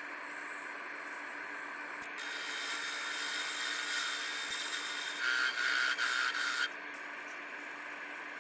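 Wood lathe running with a steady tone while sandpaper rubs against the spinning wooden blank. From about two seconds in, a turning chisel cuts at the base of the piece on the tool rest, a louder scraping that peaks between about five and six and a half seconds. It then drops back to sanding near the end.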